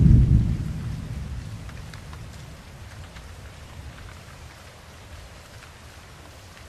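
A low thunder rumble dying away over the first two seconds, leaving steady rain with scattered drops.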